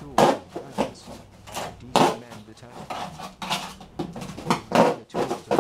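A hand tool stabbing and punching holes into stretched painted canvases, an irregular series of sharp knocks and clatters, about two or three a second.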